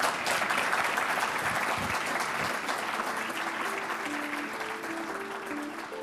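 Audience applauding, a steady clapping that thins a little toward the end. Closing theme music with a few held notes comes in about halfway through, under the clapping.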